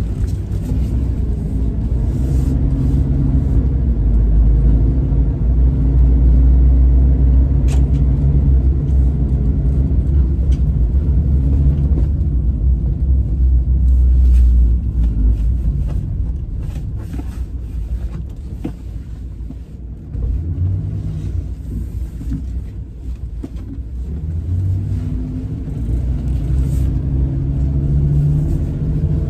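Low engine and road rumble heard from inside the cab of a moving truck. It is loud and steady for about the first fifteen seconds, eases off, then builds again from about twenty seconds in.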